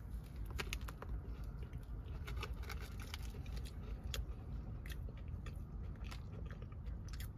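A person chewing a mouthful of cinnamon-sugar cake donut close to the microphone, with many small soft clicks and smacks of the mouth over a low steady hum.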